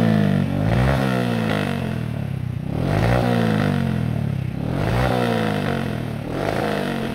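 Motorcycle engine revved repeatedly through an aftermarket Akrapovic-branded slip-on silencer, held stationary. The pitch rises and falls back about every two seconds.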